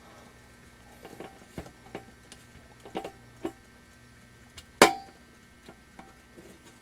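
Small clicks and taps of metal and plastic parts and tools being handled while a countertop halogen oven is put back together, with one sharp knock about five seconds in.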